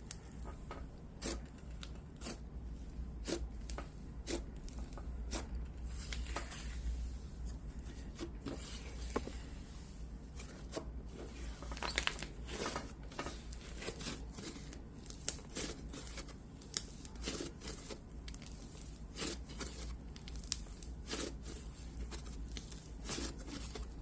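Hands squishing, stretching and pulling apart a pumice slime, giving irregular gritty crackles, small pops and tearing sounds.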